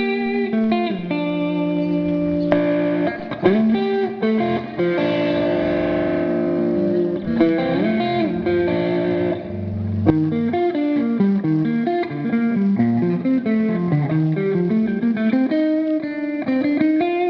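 A guitar playing sustained notes with several bends, then a run of notes rising and falling, as a sound test.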